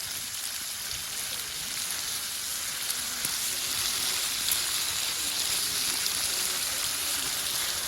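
Meat searing in a hot pan: a steady sizzle that grows a little louder partway through.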